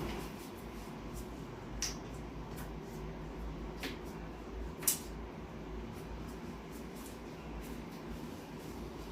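Three short sharp clicks, the loudest about five seconds in, over a steady low hum.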